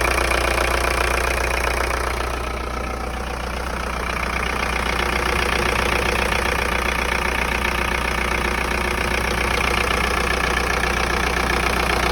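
VW AFN 1.9 TDI four-cylinder turbo-diesel idling steadily with a diesel clatter, fitted into a VW T3 van. The level dips slightly a couple of seconds in, then it runs on evenly.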